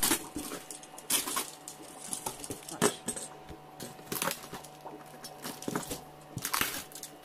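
Clear plastic wrap crinkling and cardboard rustling as a wrapped shipping box is pulled open by hand, in irregular bursts with the sharpest about three seconds in.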